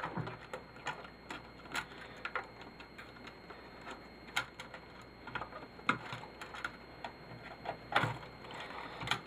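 Irregular light clicks and small knocks of turntable parts and hand tools being handled during disassembly, a few of them sharper than the rest.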